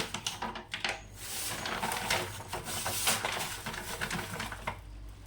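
Kitchen vessels and containers clattering and knocking as they are handled, with short clicks and rustling throughout.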